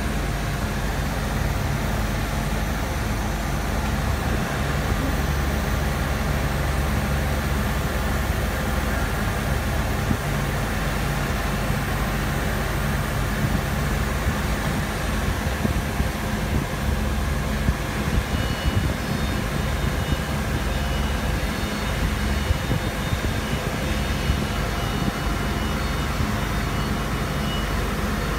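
Chencan 1325 CNC router running with a steady low machine hum. A faint high whine joins in about two thirds of the way through.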